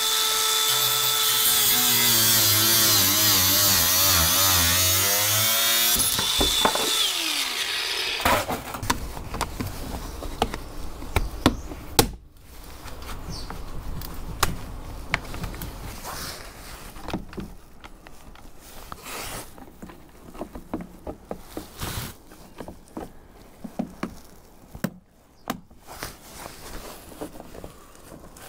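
Angle grinder cutting a length of black plastic guttering, running steadily for about six seconds and then winding down. After that come scattered clicks and knocks of the plastic gutter parts being handled and fitted.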